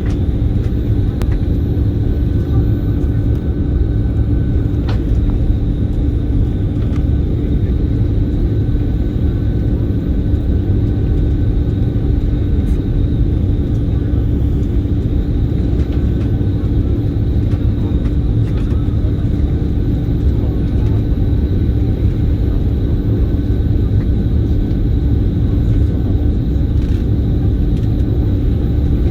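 Airbus A330-300 airliner in flight: a steady low rumble of engines and airflow, with a constant hum over it.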